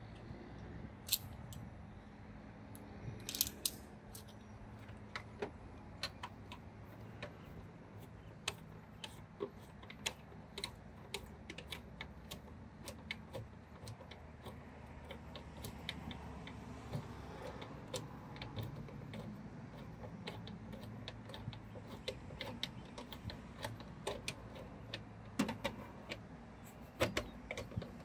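Hand screwdriver working screws out of the metal exterior trim of a panic-bar door: irregular light metallic clicks and taps, a few louder ones near the start, over a faint low steady hum.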